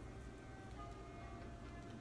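Quiet background music: a soft melody of held notes changing every half second or so.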